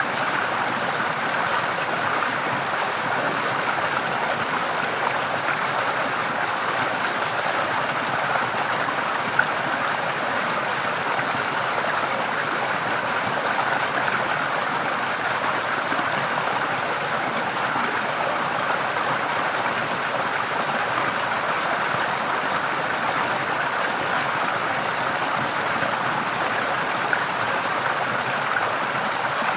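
Forest stream running, a steady rush and splash of water with no break.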